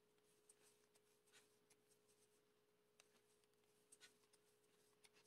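Near silence: room tone with a faint steady hum and a few very faint ticks.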